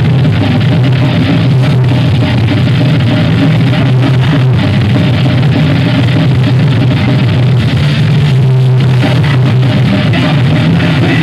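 Thrash metal band playing live: distorted electric guitar, bass guitar and drum kit, loud and steady throughout.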